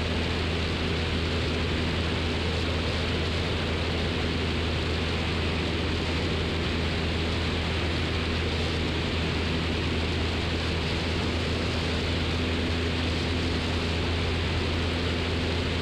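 Steady drone of a 1969 Cessna 172's four-cylinder Lycoming O-320 engine and propeller in flight, heard inside the cockpit as an even noise over a constant low hum.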